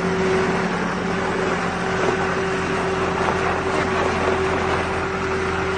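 Tractor engine running steadily at constant speed, a steady drone with a held tone that does not rise or fall.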